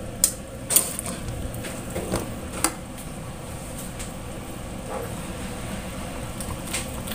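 Slotted metal spatula clinking and scraping against a stainless steel wok while stirring chicken rendang in coconut milk, about half a dozen sharp clinks, most of them in the first three seconds, over the steady low noise of the simmering sauce.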